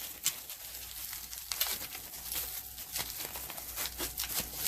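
Plastic wrapping crinkling and rustling as it is pulled and torn off by hand, in a steady run of irregular crackles.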